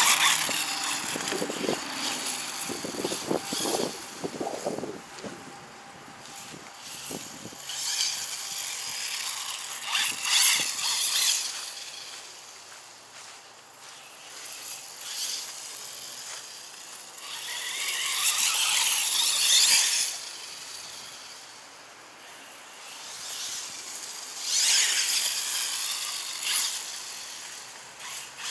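Arrma Senton RC car's electric motor and drivetrain whining in repeated bursts as it speeds back and forth, the pitch rising and falling with each run, with the tires hissing over grass.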